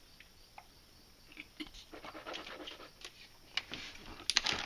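A man drinking from a plastic water bottle: soft swallows and breaths, then a few sharp plastic clicks and crinkles near the end as the bottle is set down.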